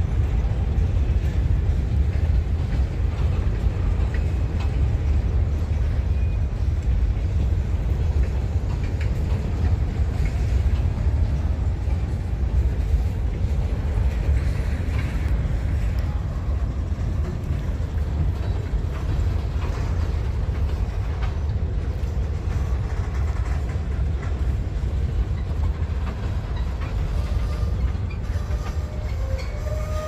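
CSX freight train rolling past, a steady heavy rumble of wheels on rail with faint clicking of the cars, and a faint squeal coming in near the end.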